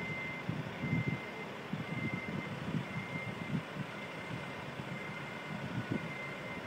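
Vehicle backup alarm beeping about once a second in a single high tone, over the low, uneven rumble of heavy vehicle engines in the street.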